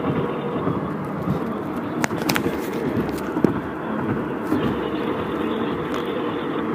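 Steady vehicle running noise, with a couple of sharp clicks about two seconds in.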